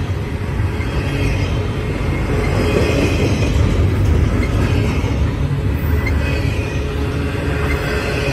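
A CSX double-stack intermodal freight train's container-laden well cars rolling past close by, with a steady, loud noise of steel wheels on the rails.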